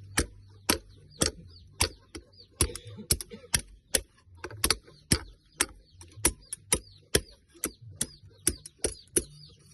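Blacksmith's hammer striking iron on an anvil: a steady run of sharp, ringing blows, about two a second, some landing in quick pairs.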